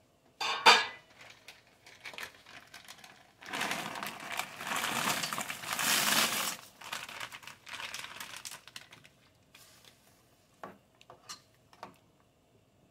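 A plastic bag of peas and carrots crinkling as the vegetables pour into a pot of simmering rice, after a sharp clatter near the start. Near the end a spoon clicks against the enamel pot a few times while stirring.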